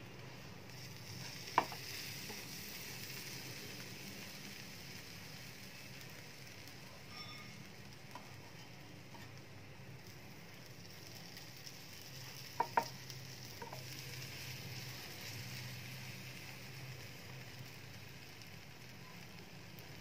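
Buttered bread slices sizzling gently in a nonstick frying pan as they toast, with sharp taps as the slices are turned with a plastic spatula: once early and twice in quick succession a little past the middle.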